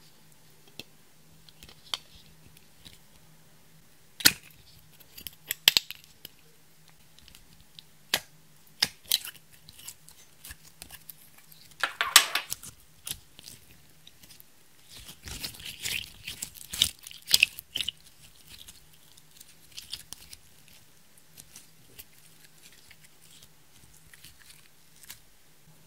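Red slime being handled from plastic cherry-shaped containers. There are scattered sharp clicks, a wet squelch about twelve seconds in as the slime is squeezed out, then a few seconds of sticky crackling and popping as it is pressed and kneaded.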